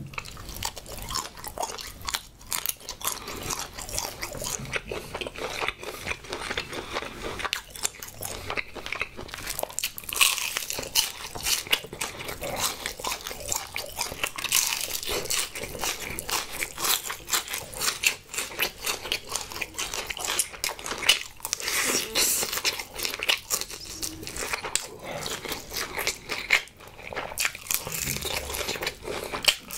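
Crunchy bites and chewing of crisp-coated fried honey chicken drumsticks: a dense run of crackling crunches with a sharper snap of the coating now and then.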